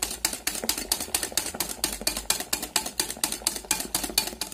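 Wire balloon whisk beating eggs and sugar in a glass bowl by hand: the wires knock against the glass in a rapid, even clicking, about six strokes a second, as the mixture is whipped frothy. The beating stops near the end.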